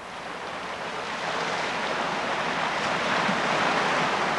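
Ocean surf breaking over coastal rocks: a steady rushing wash that swells up over the first couple of seconds and then holds.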